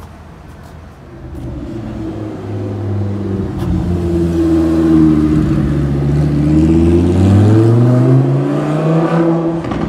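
Lamborghini Huracán's V10 engine growing louder as the car drives past, then climbing in pitch near the end as it accelerates away.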